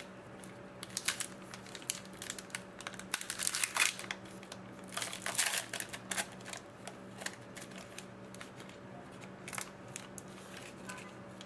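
Hockey trading cards and their packaging being handled and sorted by hand: an irregular run of rustles, crinkles and light clicks, busiest a few seconds in.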